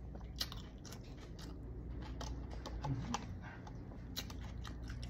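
Eating sounds close to the microphone: scattered, irregular light clicks and crackles of a person chewing food, over a low steady background hum.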